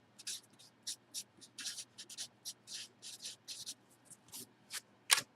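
Hand-handling noises: a string of short, scratchy rustles and scrapes, about two or three a second, with one sharper, louder click near the end.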